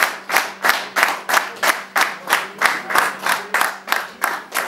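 A small group of people clapping hands together in a steady rhythm, about three claps a second.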